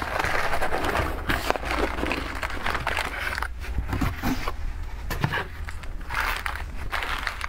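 Plastic wrappers of a heap of individually wrapped snack packets crinkling and rustling as they are poured out of a box and pushed around on a table, with many small crackles and clicks. A steady low hum sits underneath.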